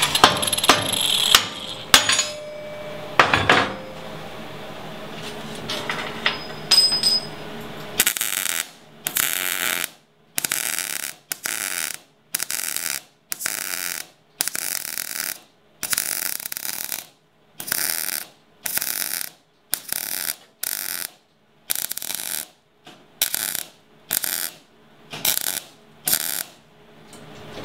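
Wire-feed welder arc in some twenty short bursts of about half a second each, with near-silent gaps between, as a seam on a steel frame rail is stitch-welded. Before the welding starts there are a few knocks and clanks of handling.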